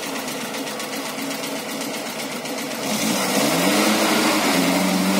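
Off-road vehicle's engine running, then revving up and down from about three seconds in, its pitch rising and falling.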